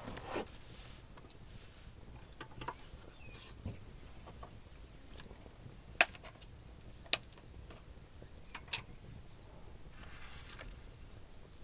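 Wood campfire crackling quietly, with a few sharp isolated pops, the loudest two about six and seven seconds in.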